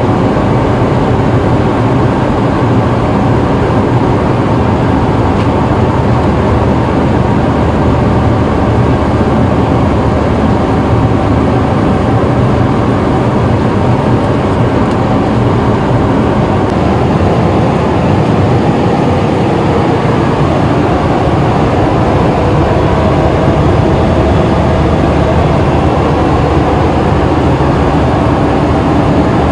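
Steady, loud drone of jet engines and rushing air inside the cabin of a Boeing 737-800, unchanging throughout.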